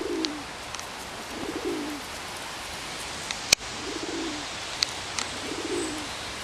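A bird cooing low, four calls about every couple of seconds, with a few faint, brief high chirps. One sharp click about halfway through is the loudest sound.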